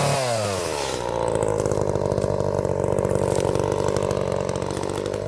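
Two-stroke chainsaw falling off from high revs in the first second, then idling steadily.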